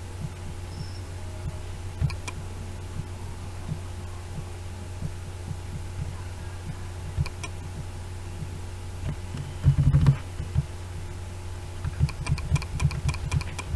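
Steady low electrical hum, with faint single clicks and, near the end, a quick run of clicks typical of a computer mouse and keyboard. A short burst of low thumps about ten seconds in is the loudest thing.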